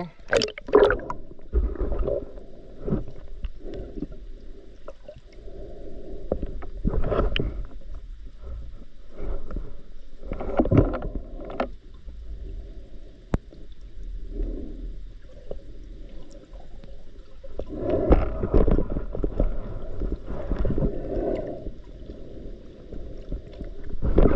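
Muffled underwater water noise heard through a submerged camera housing: water sloshing and rushing past in uneven surges, with a few dull knocks, strongest about a second in, around the middle and again near the end.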